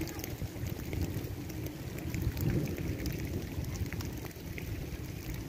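Wind buffeting the microphone, a fluctuating low rumble, with scattered faint ticks over it.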